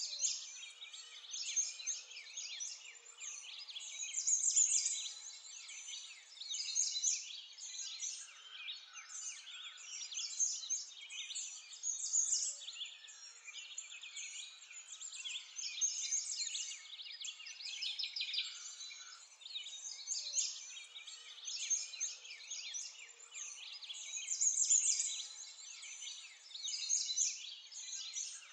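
Dense chorus of many small songbirds chirping, with no other sound; the calls overlap continuously and swell and fade every few seconds.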